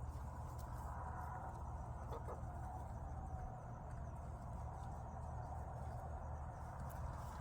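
Chickens clucking softly as they settle on their roosts, over a steady low hum.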